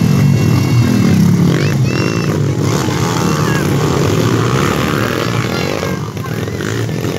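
Dirt-bike engines revving up and down at low speed as riders work through a rough rocky trail section, with a rise in revs about a second in.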